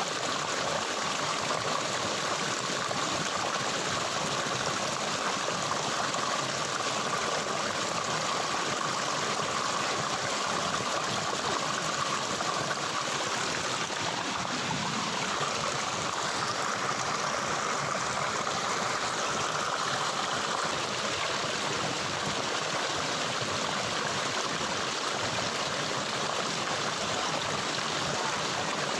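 Water in a stream running steadily.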